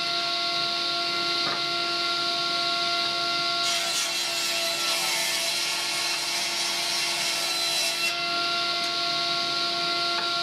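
Table saw running with a steady whine. From about four to eight seconds in, its blade rips a strip off a glued-up wooden panel, and a hissing cutting noise covers the whine.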